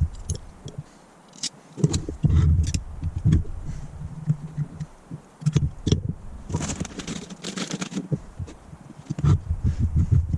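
Hand tools clicking, knocking and scraping on the metal body of a Holley four-barrel carburettor as it is taken apart, with a short hiss about six and a half seconds in.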